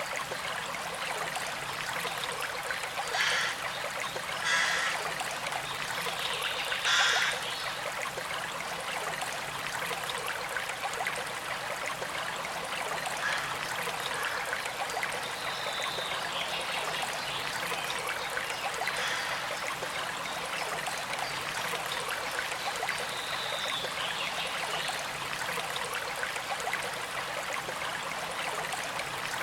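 A stream flowing and trickling steadily, with a few brief louder splashing surges in the first eight seconds and two short high-pitched tones later.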